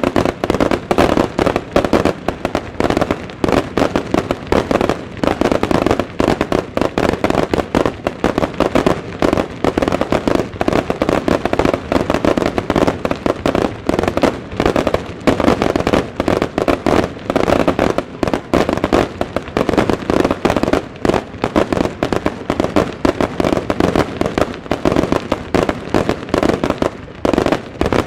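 Starmine fireworks barrage fired from a nearby launch site: a dense, unbroken rapid-fire string of booms, many shells launching and bursting every second.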